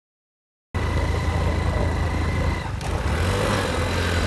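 A vehicle engine running steadily with a low hum, heard from on board while moving, with air and road noise. It cuts in abruptly out of silence about a second in.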